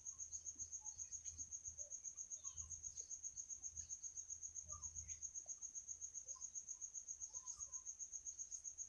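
A cricket chirping, a thin high-pitched pulse repeated evenly several times a second, with a few faint bird chirps behind it.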